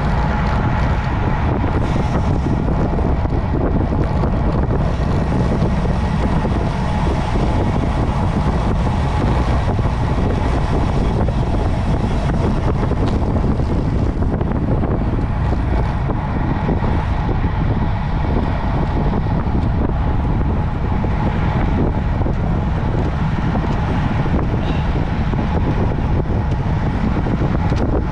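Steady wind rushing over the microphone of a camera riding along on a road bike, with a heavy low rumble and no letup.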